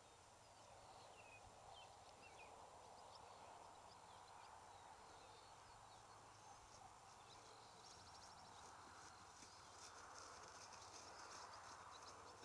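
Faint hoofbeats of a ridden horse on grass, soft and quiet, becoming plainer near the end as the horse comes close.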